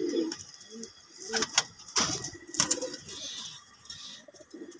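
Domestic pigeons cooing in a loft in low, repeated murmurs. Four short sharp sounds come between about one and three seconds in.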